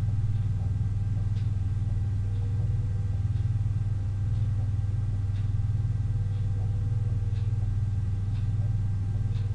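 A steady low electrical hum, most likely mains hum picked up by the recording setup, with a few faint ticks from a stylus writing on a tablet.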